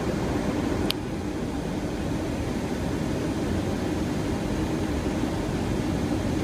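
Steady rushing flight-deck noise of a Boeing 737-800 on final approach, airflow and engine noise with no voices, and a brief click about a second in.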